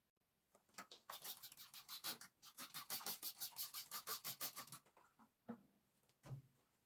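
Rapid back-and-forth scrubbing strokes, about five a second, lasting a few seconds, then a couple of soft knocks.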